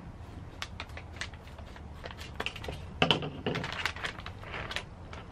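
Silver foil packaging bag crinkling and crackling as it is cut with scissors and then pulled open by hand, with a louder clatter about three seconds in.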